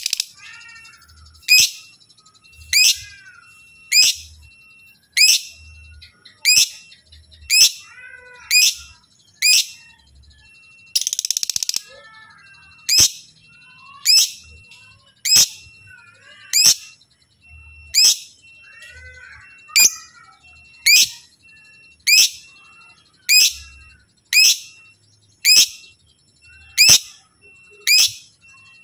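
Lovebird calling: a short, sharp, high chirp that falls in pitch, repeated about once every 1.2 seconds, broken about eleven seconds in by one longer harsh, chattering call.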